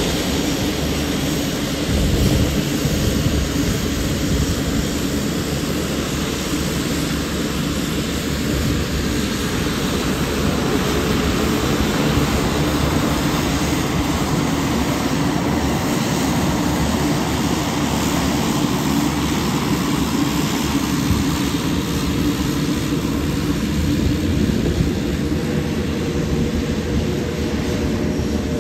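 Pilatus PC-12 single-engine turboprop taxiing at low power: the steady whine of its turbine over the hum of the turning propeller.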